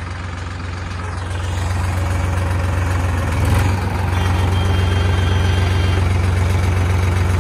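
Tractor engine running steadily from the driver's seat, growing louder about two seconds in, with a short knock about halfway through.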